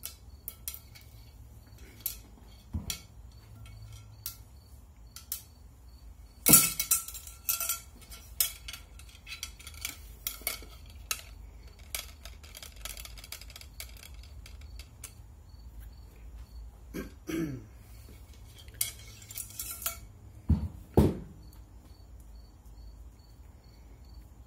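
Shotgun cleaning rod and its attachments clinking and tapping as a bore mop is handled and fitted to the rod. Scattered light clicks throughout, with louder clatters about six and a half seconds in and again around twenty to twenty-one seconds.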